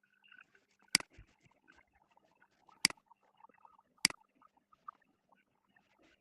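Three sharp clicks, spaced one to two seconds apart, over faint scattered background noise.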